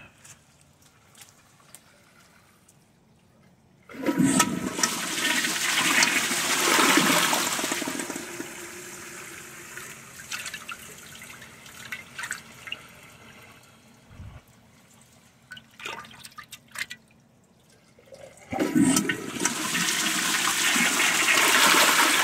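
Kohler Gleam low-flow toilet flushing twice. A loud rush of water starts about four seconds in and dies away to a trickle, and a second flush starts near the end. In between come scattered small splashes and knocks of a hand working in the dirty bowl water.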